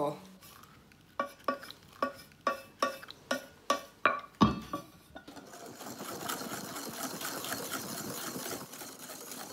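Metal kitchenware clinking and tapping, about two ringing clicks a second while melted chocolate is poured from a small metal pan into a bowl, with one heavier knock about four and a half seconds in. From about five seconds in, a wire whisk beats the chocolate into cake batter in the bowl with a steady swishing.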